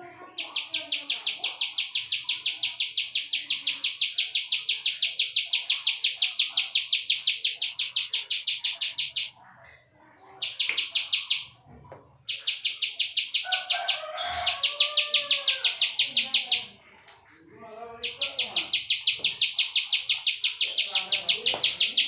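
Prinia (ciblek sawah) giving its 'klik' song: long runs of fast, evenly repeated high clicking notes that break off three times and start again. A brief lower warbling sound comes in about two-thirds of the way through.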